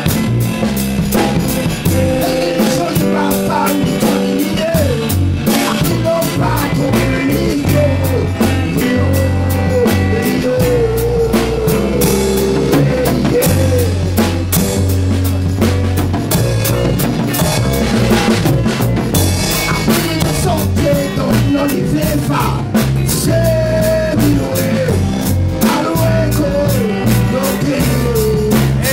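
A band playing an upbeat rock-style song: drum kit keeping a steady beat under a stepping bass line, with a wavering melody line over them.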